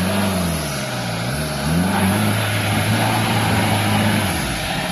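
Nissan Terrano's TD27 turbo-diesel engine revving under load as the 4x4 spins its tyres in mud, its pitch rising and falling, then held high for about two seconds before dropping off near the end.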